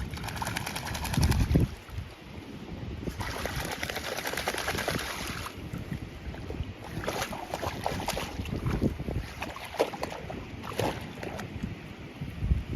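Water splashing and sloshing in several bursts, with wind rumbling on the microphone in gusts.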